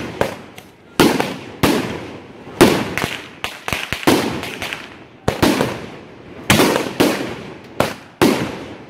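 Consumer fireworks shooting shots into the air one after another, each a sharp bang with a fading echo, about one to two a second.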